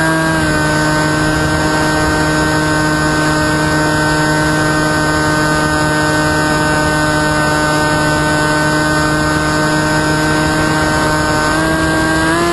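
Electric motor and propeller of a small FPV flying wing heard from on board, a steady hum over wind rush. Its pitch steps down slightly just after the start and rises again near the end as the throttle changes.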